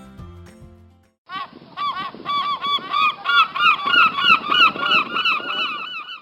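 Music fading out in the first second, then a flock of gulls calling: many short, overlapping cries that get louder and busier over the next few seconds.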